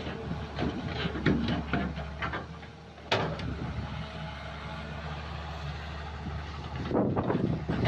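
Excavator diesel engine running steadily, with irregular knocks and clatter and one sharp knock about three seconds in.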